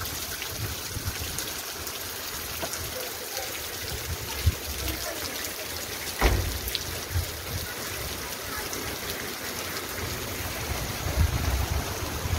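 Heavy rain pouring steadily, with water running and splashing down from the roofs. Two sharp knocks break through, the louder one about six seconds in, and there are low rumbling bursts at the microphone.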